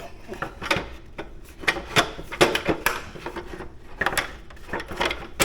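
Irregular clicks, knocks and rubbing of the motorcycle's lower fairing cover being handled and fitted back on.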